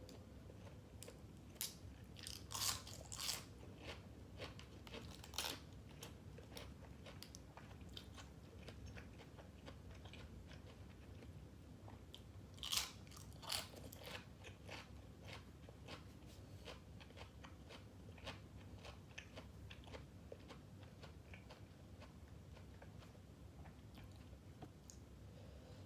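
Close-up eating sounds of grilled pork balls and crisp vegetables: loud crunchy bites in two clusters, about two seconds in and again about halfway through, with softer steady chewing between them.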